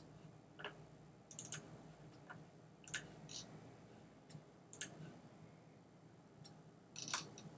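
Faint computer mouse clicks, about a dozen scattered over several seconds, some in quick pairs, as a file is chosen in a dialog and loaded.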